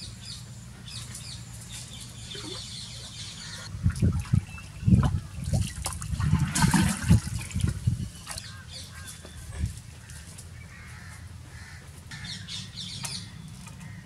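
Water sloshing, gurgling and splashing as an earthen pot is plunged into a concrete water tank and filled, in a run of irregular surges from about four seconds in to about eight seconds in.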